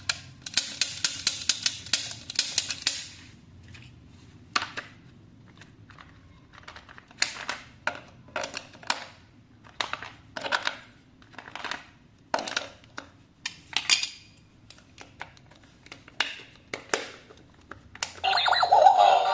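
Toy packaging being handled and opened, with plastic and cardboard crackling, rustling and clicking in irregular short bursts; a dense run of rapid crackles comes about a second in. Music starts near the end.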